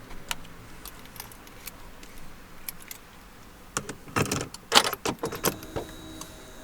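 A bunch of car keys jangling and clicking, with a burst of louder rattles about four seconds in. A faint steady high-pitched tone sets in near the end.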